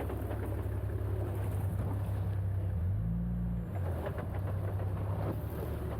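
Four-wheel drive's engine running steadily with a low hum, its note shifting a little past halfway.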